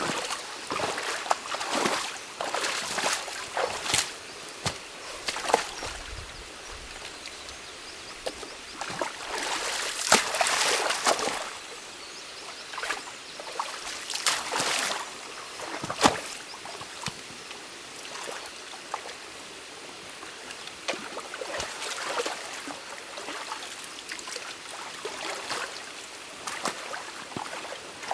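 Stream water running and trickling through a beaver dam, with irregular splashes and sloshing and several sharp knocks as sticks and mud are pulled out of the dam by hand.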